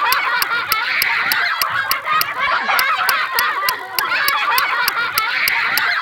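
Looped sound effect of many overlapping honking calls over a steady ticking, about four ticks a second, the loop repeating about every four and a half seconds.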